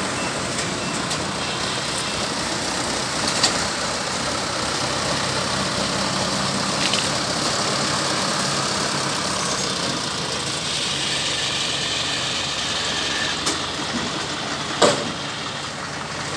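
Engine of a tracked farm crawler carrier running steadily, with a sharp clack about three and a half seconds in and a louder one near the end.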